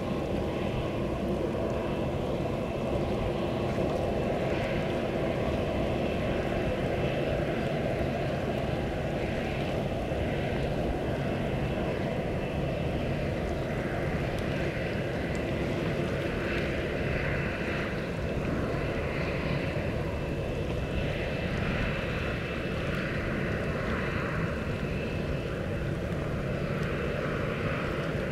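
Boeing 737 jet engines running at low power as the airliner taxis, a steady rumble with a continuous high whine.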